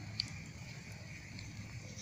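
Wood fire crackling around a cooking pot, with one sharp pop about a fifth of a second in, over a steady low rumble.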